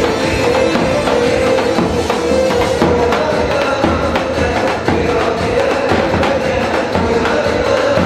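Live halay dance music: a davul bass drum beaten in a steady rhythm under a held melody line.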